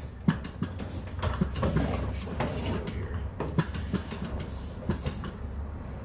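Sewer inspection camera's push cable being fed into a drain line, with irregular rattling and knocks over a low rumble.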